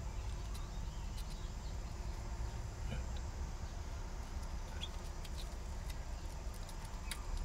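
Faint scratching and a few light ticks of paper being worked under a baby bird by hand, over a low steady rumble.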